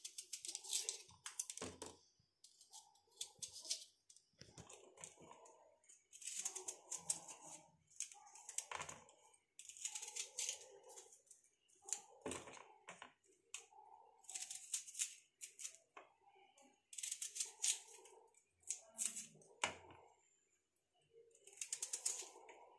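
Small kitchen knife slicing through red onions, crisp cutting clicks coming in short bursts every second or two.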